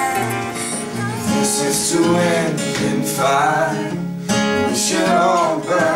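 Acoustic guitars strummed as accompaniment to voices singing a slow song with vibrato.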